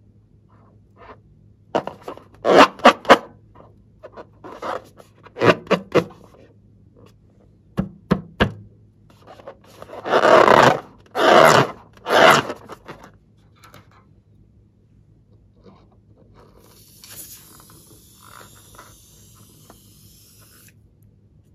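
Fingers squeezing and rubbing a slime-filled rubber balloon: a series of short rubber rubs and squeaks, loudest in a group of longer ones about halfway through. A quieter hissing rustle follows near the end.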